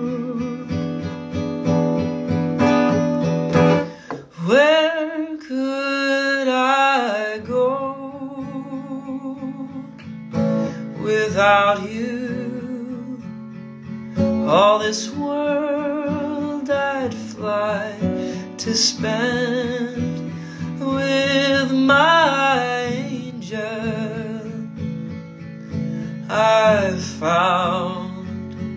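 A man singing slow phrases, with vibrato on the held notes, over a strummed acoustic guitar.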